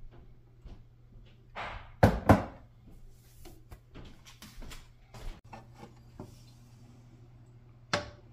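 Kitchen handling noises: two loud knocks about two seconds in, scattered lighter clicks and taps, and one more sharp knock near the end, over a low steady hum.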